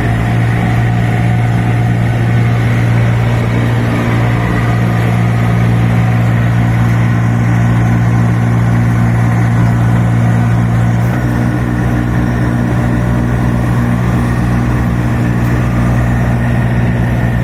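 Kubota diesel engine of a 2.7-ton mini excavator running steadily, its note changing slightly about eleven seconds in.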